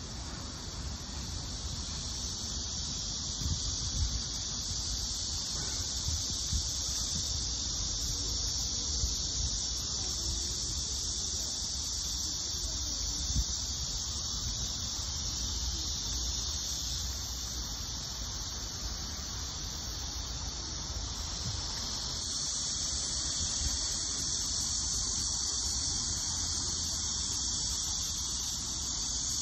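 Steady, high-pitched chorus of cicadas in the trees, running without a break, over a low rumble with a few short bumps.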